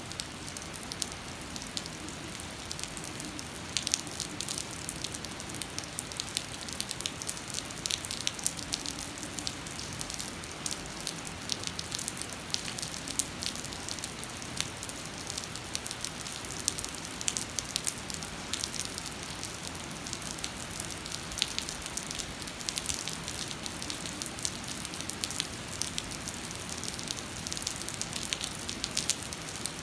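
Heavy rain pouring onto wet, puddled pavement: a steady hiss dotted with many sharp ticks of individual drops.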